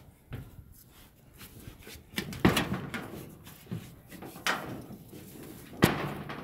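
Footsteps and knocks on a pressed-metal tile roof: a few irregular thumps, the loudest about two and a half seconds in and again near the end.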